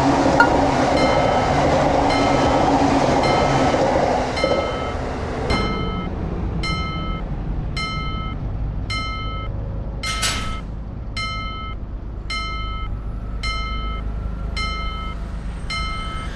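Japanese railway level-crossing warning bell ringing steadily, just under two strikes a second. For about the first five seconds a passing train's running noise rumbles over it, then fades, leaving the bell alone with a brief rush of noise about ten seconds in.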